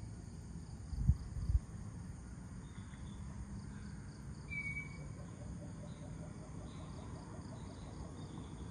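Crickets and other insects chirping steadily in a continuous chorus, with one short high chirp about halfway through. Two brief low thumps about a second in are the loudest sounds.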